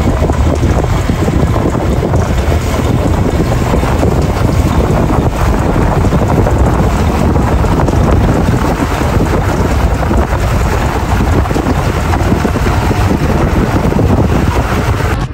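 Wind buffeting the microphone on a moving boat that is towing a banana boat, over a steady rush of water and the boat's motor.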